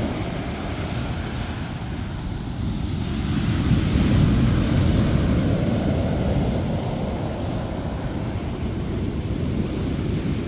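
Ocean surf breaking and washing up a beach, a continuous rushing that swells louder about four seconds in. Wind buffets the microphone with a low rumble.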